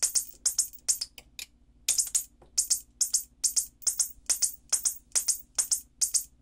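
Whelen Edge Strobe II double-flash strobe power supply firing its strobe tubes: sharp ticks in quick pairs, a little over two pairs a second, with a short break about a second and a half in. The repaired supply, once given up as beyond repair, is firing its outputs normally.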